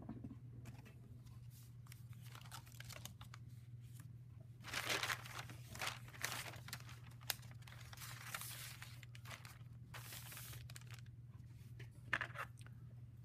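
Paper rustling and crinkling in several bursts from about five seconds in, as sketchbook pages are turned and a sheet of newspaper is slid under a page and laid flat.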